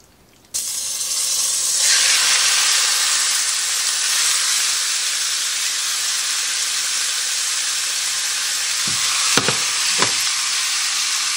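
Cubed raw chicken dropped into a hot skillet greased with avocado oil spray, sizzling loudly. The sizzle starts suddenly about half a second in and holds steady, with two sharp knocks about a second apart near the end.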